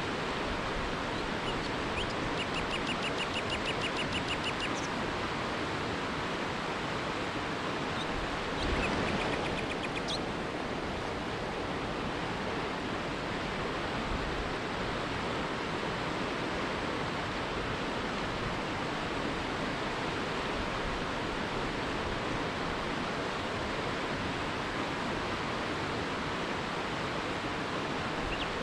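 Steady rush of water from a river rapid. A bird sings two short runs of quick, high repeated notes over it, about two seconds in and again about nine seconds in.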